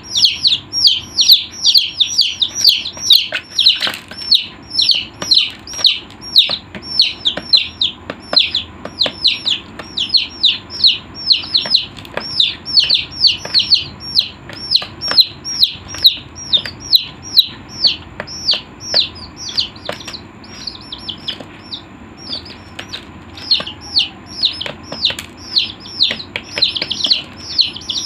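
Chicks peeping continuously: a dense run of high, short, downward-sliding peeps, several a second and overlapping, thinning briefly about three quarters of the way through.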